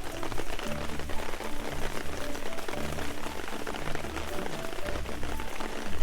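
Steady crackling and sizzling from cooking over a campfire, under background music with slow low bass notes and a simple melody.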